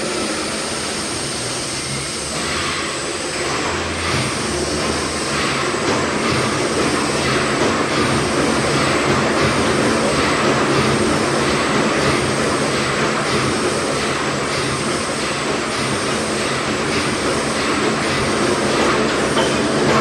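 The Hesketh colliery steam winding engine, a 500 hp twin-cylinder winder built by Worsley Mesnes of Wigan, running through a wind with a regular beat that grows a little louder.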